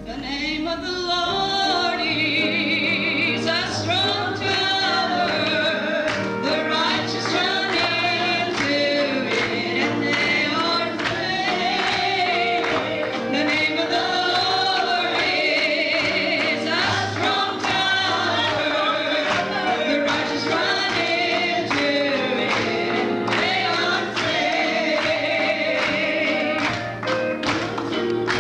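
Church praise team singing a gospel worship song into microphones, with instrumental accompaniment and a steady beat.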